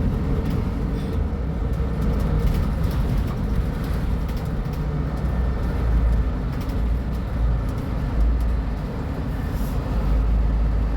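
Mercedes-Benz O500U city bus's diesel engine running with a steady low rumble that swells and eases slightly.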